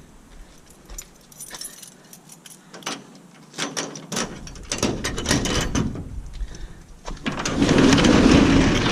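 Small pieces of scrap metal clinking and rattling as they are handled, a string of sharp clicks. About seven seconds in, a louder steady rushing noise takes over.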